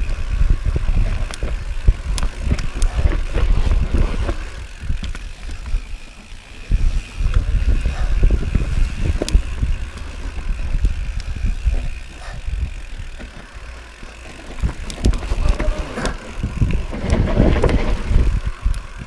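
Mountain bike riding fast down a dirt singletrack: tyres on dirt and the bike rattling over bumps with many sharp clicks and knocks, with wind buffeting the camera microphone.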